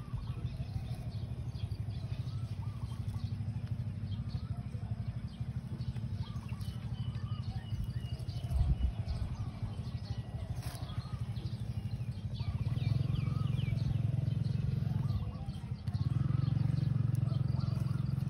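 An engine running steadily with a low pulsing hum, louder from about thirteen seconds in and again near the end, with small birds chirping over it.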